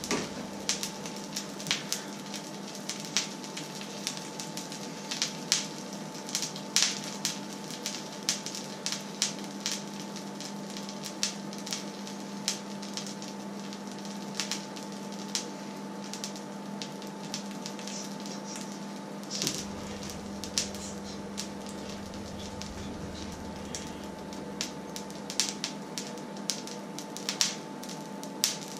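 Oil crackling and spitting in a hot black steel pan on an electric hob: irregular sharp pops, several a second, over a steady hum.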